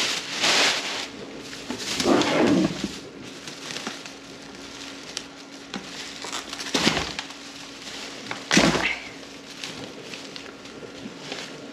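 Thin plastic shopping bag rustling and crinkling in several short bursts as it is handled and its knotted top is picked at, over a faint steady hum.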